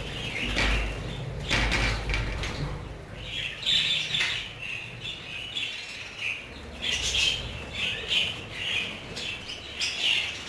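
A flock of budgerigars chirping and chattering in repeated short calls, with bursts of wings flapping, mostly in the first two seconds.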